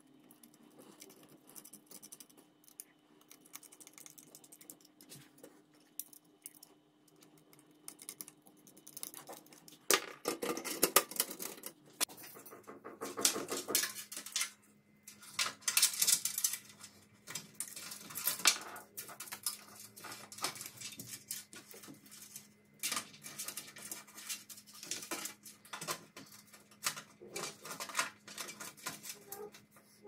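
Hands fitting parts into a PC tower case. Faint small clicks of a screwdriver and screws on a plastic drive bracket give way, about ten seconds in, to louder irregular clattering and rustling as power cables and components are handled inside the steel case.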